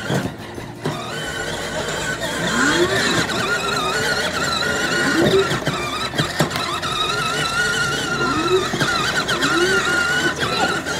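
Vespa 12V electric ride-on toy scooter driving, with a wavering high whine and about four short tones that rise and fall lower down.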